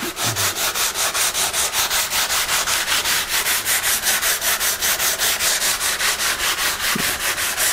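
Sandpaper rubbed by hand along oak, rapid even back-and-forth strokes at about five or six a second under firm downward pressure.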